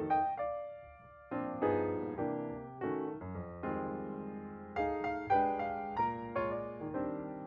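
Background piano music: a calm melody of single struck notes and chords that ring and fade, briefly thinning to one fading note about a second in.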